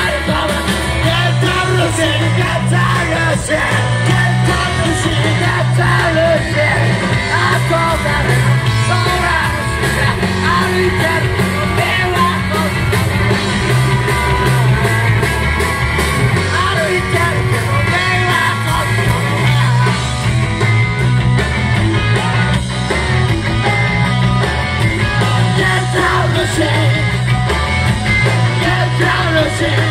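A rock band playing live: drums, electric guitar and bass with a singer, heard from among the crowd.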